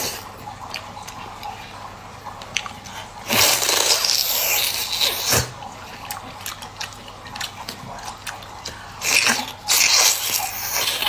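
Water splashing and running in two loud stretches, about three seconds in and again near the end, with small knocks and clicks between them as a squid is handled in water.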